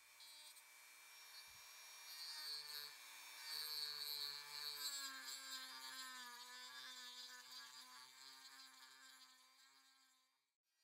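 Dremel 3000 rotary tool running a small ball carving burr against wood: a thin, high whine whose pitch dips and wavers around the middle, then fades out near the end.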